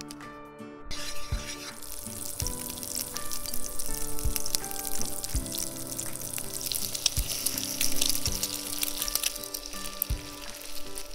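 Butter and egg-coated bread sizzling in a hot frying pan, a dense crackling hiss that starts about a second in, with light background music playing throughout.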